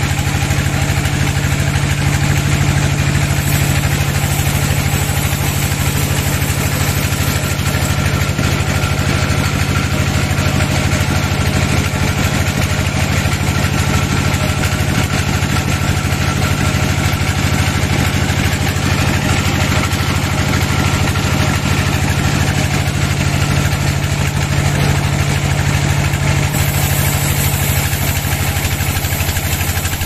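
Band sawmill running steadily, its drive giving a low drone under the noise of the blade cutting through a log.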